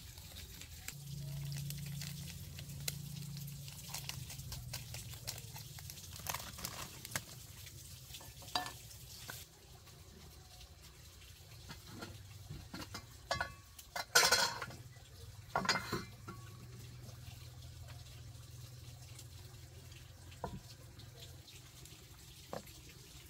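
Water poured into a bowl of crushed instant noodles, among scattered small clicks and knocks of handling; the loudest rush comes about halfway through, with a shorter one just after.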